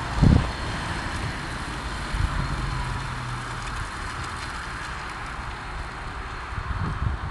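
Wind buffeting the microphone, with a strong gust at the start and more gusts near the end, over the faint steady hum of a car engine running at low speed.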